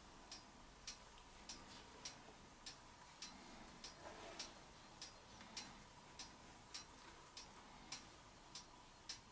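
Faint, even ticking of a clock, just under two ticks a second.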